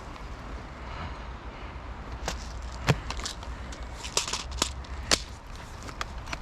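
Irregular sharp clicks and cracks, several in a cluster from about two to five seconds in, the loudest near the three-second mark, over a steady low rumble.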